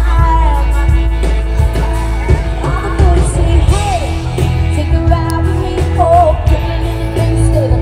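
Live pop-rock band playing a song, with a woman singing lead over electric guitars, bass, drums and keyboard.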